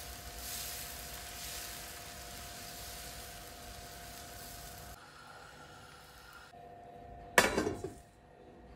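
Dosa batter sizzling on a hot tawa as it is spread with a ladle, a steady hiss that fades after about five seconds. About seven seconds in, a glass pan lid clanks sharply against the pan with a brief ring, the loudest sound.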